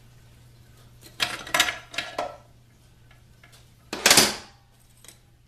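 Loose steel transmission parts clinking and clattering as they are handled: a few quick clinks a little over a second in, then one louder metal clank with a short ring about four seconds in.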